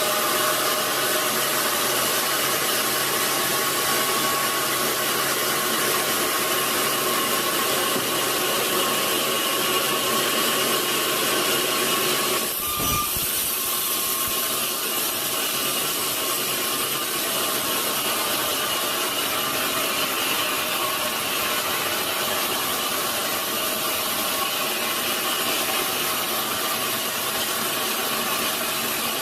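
Sawmill saw cutting through a large log: a steady, noisy whine that goes on throughout, with a brief break and a low thud about twelve seconds in.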